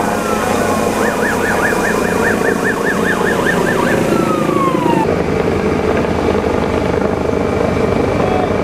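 Emergency vehicle siren: a slow wail that switches about a second in to a fast yelp of roughly four up-and-down sweeps a second, then falls away. About five seconds in the sound changes abruptly to a steady engine rumble.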